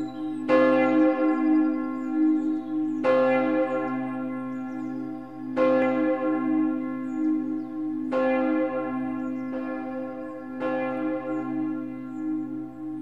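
A bell struck at an even pace, about once every two and a half seconds, five strokes in all, each ringing on and fading into the next over a steady low hum.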